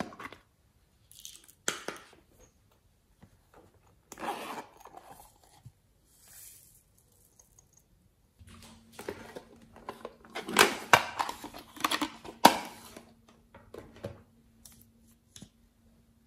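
Small plastic containers of confetti and sprinkles being clicked open and handled, then shaken out over a tray of slime. There are scattered light clicks and rustles, then a dense crackly, crinkly stretch with sharp clicks in the second half.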